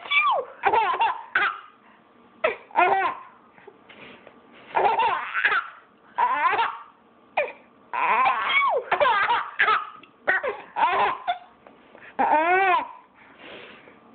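A baby laughing: high-pitched giggles and squealing laughs in short bursts, a second or two apart.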